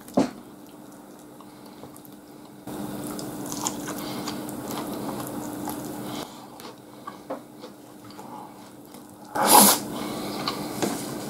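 Close-miked eating sounds: a man chewing mouthfuls of katsudon (breaded pork cutlet with egg and rice), with a sharp click near the start and small wet mouth clicks. A short, loud breathy burst comes about nine and a half seconds in.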